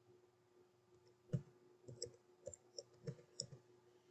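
Faint keystroke clicks on a computer keyboard: about ten irregular taps starting a little over a second in, the first the loudest.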